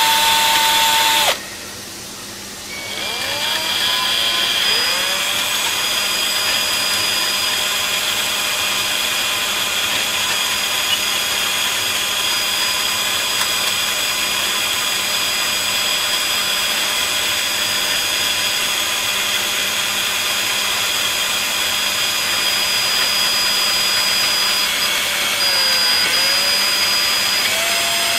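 Small handheld rotary tool with a pink grinding stone, running at high speed as it grinds and smooths the punched holes in a jar lid. It runs briefly, eases off about a second in, then spins back up with a rising whine and holds a steady whine. Its pitch dips briefly near the end as the stone is pressed in.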